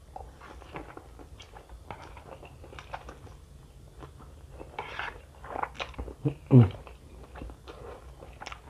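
Close-up wet chewing and mouth smacking of a mouthful of fried instant noodles, with strands slurped in. There is one louder burst about six and a half seconds in.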